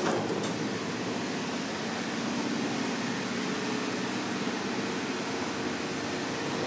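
Steady hum of building ventilation, an even whir with no distinct events.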